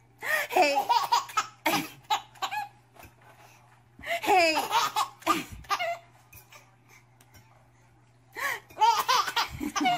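A baby laughing in three bursts, each one to two and a half seconds long, with short quiet gaps between them, over a steady low hum.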